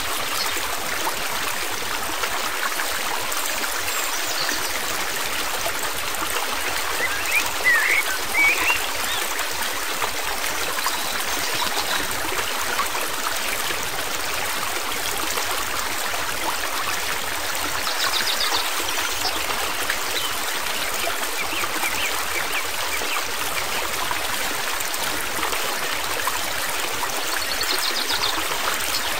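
Steady rush of flowing stream water, with a few brief high chirps about eight seconds in.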